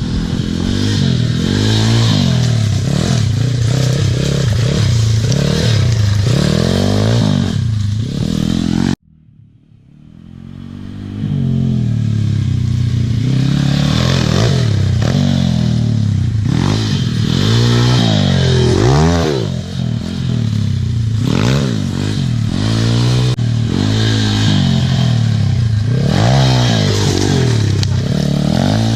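Pit bike engine being ridden, revving up and falling back over and over as the rider works the throttle and gears. The sound cuts off suddenly about nine seconds in and fades back up over the next two seconds.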